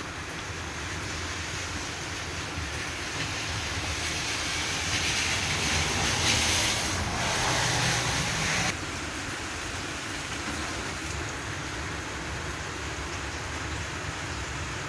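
Steady hiss of rain falling, swelling into a louder rush for a few seconds midway and dropping back abruptly about nine seconds in.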